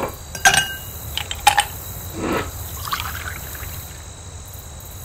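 A few sharp clinks with a brief ringing tone, then liquid pouring and trickling, over a steady high insect drone.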